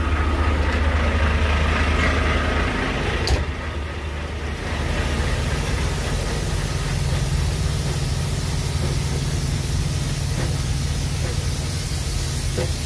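Idling diesel semi-truck engines, a steady low drone. About three seconds in there is a single sharp knock from a cab door shutting, after which the hum sits a little higher with a steady hiss as the drone is heard out in the open between the parked rigs.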